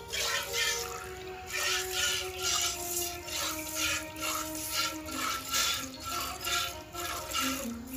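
Streams of milk squirting into a metal pail as a cow is milked by hand, in short hissy strokes about twice a second, over background music with held notes.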